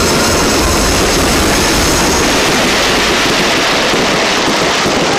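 A dense barrage of fireworks, many shells and spark fountains going off at once so that the bangs and crackling merge into one steady, loud noise with no separate reports.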